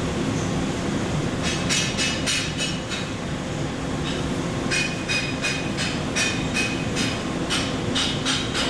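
A hammer striking metal in quick runs of sharp, ringing taps, about five a second, over a steady machine hum.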